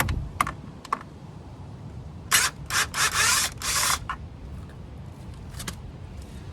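A few light clicks, then a cluster of short, loud scraping rattles about two to four seconds in and one more click near the end: metal parts of a scooter's CVT being handled and worked on by hand.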